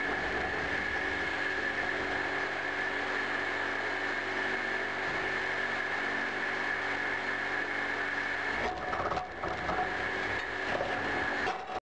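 A running blower motor: a steady drone with a high whine. It dips briefly about nine seconds in and cuts off abruptly just before the end.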